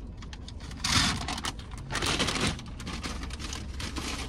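Close handling noises of food and a red paper fries carton: crinkling and clicking, with two louder rustling bursts about one and two seconds in, over a low steady hum.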